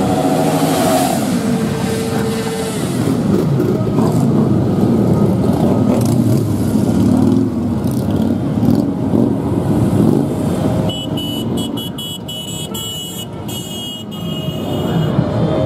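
A procession of motorcycles, cruisers and sportbikes, riding slowly past one after another, engines running and revving. It gets a little quieter about three-quarters of the way through as the gap between bikes opens.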